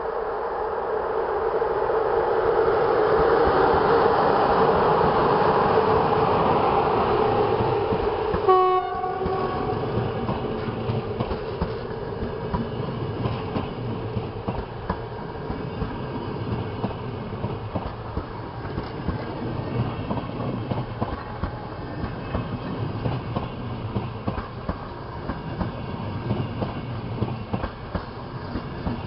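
Electric locomotive's horn sounding one long, steady blast that grows louder as the train approaches and cuts off about eight and a half seconds in. Then the passenger coaches roll past close by, with a low rumble and rapid clicking of wheels over the rail joints.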